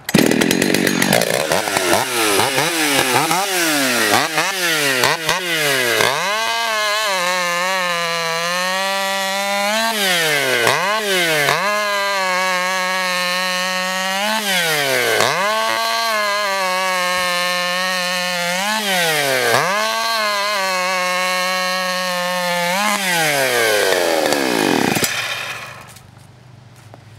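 Ported Husqvarna 61 two-stroke chainsaw with a tuned muffler, started and blipped up and down a few times, then held at full throttle while cutting through a log. The engine pitch sags under load and climbs back about five times as it bucks off rounds. It winds down near the end.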